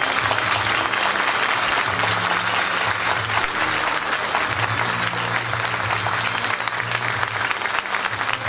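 Large audience applauding steadily, with music playing underneath.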